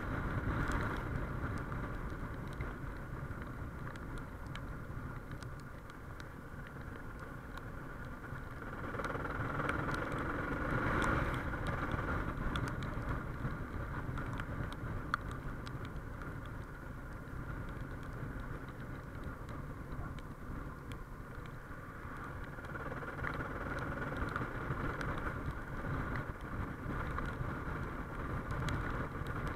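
Suzuki XF650 Freewind's single-cylinder engine running at a steady cruise of about 55–60 km/h, mixed with wind rush on a chest-mounted action camera's built-in microphone. The engine swells louder for a few seconds around the middle.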